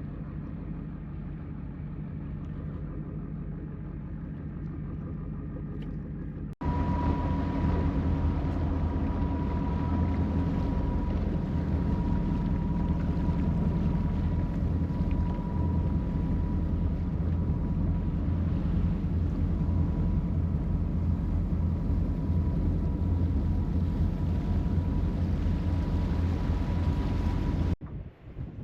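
Motorboat engine running steadily under way, a low hum. About six seconds in it turns abruptly louder and rougher, with a thin steady high tone over it, and it cuts off suddenly near the end.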